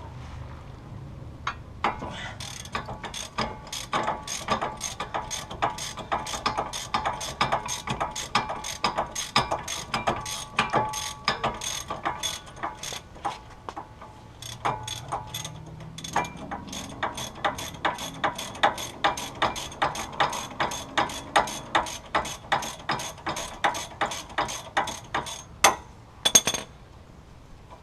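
Hand ratchet wrench clicking in quick, even runs as it is swung back and forth on a bolt, with a short pause midway. A couple of louder clicks come near the end.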